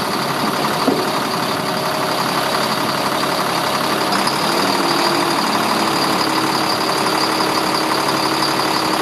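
Diesel engine of a Sterling L8500 dump truck running steadily while the hydraulic hoist lowers the dump body, with a single click about a second in. A steady whine joins about four seconds in and holds.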